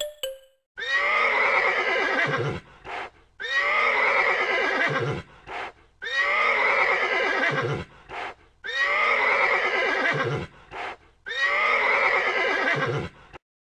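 A horse whinnying: the same call repeated five times, identical each time, about every two and a half seconds, with a brief shorter sound after each.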